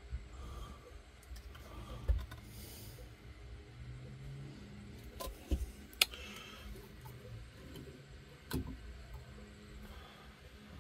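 Faint low hum and hiss from a newly wired car amplifier and speakers, powered up with nothing playing: the fuzziness of an amp hooked up before any music plays. A few light clicks and knocks sound over it.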